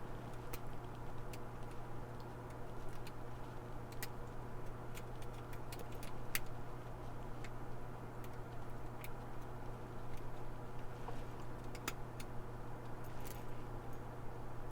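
Faint, irregular metallic clicks and ticks of a lock pick and tension wrench working the pins inside a laminated steel padlock, over a steady low hum.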